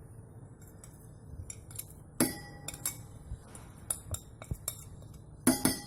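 Metal utensils clinking against a metal pot: a ringing strike about two seconds in, a few lighter taps after it, and a louder cluster of ringing clinks near the end.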